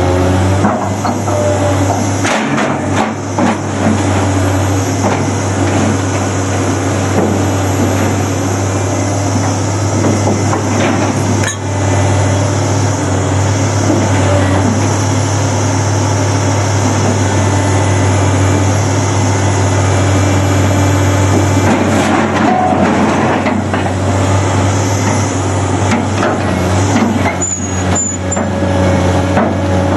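Komatsu excavator with a scrap shear working: a steady diesel engine hum, broken now and then by clanks and knocks of heavy iron.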